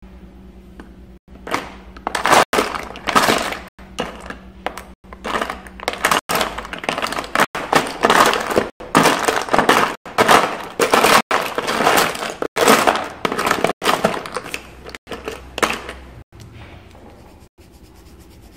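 Rummaging through a box of coloured pencils, a quick jumble of clatters and rustles, while searching for a blue one. The noise starts about a second and a half in and dies down near the end.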